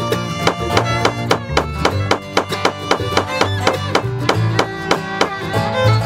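Instrumental background music with string instruments and a steady, quick beat.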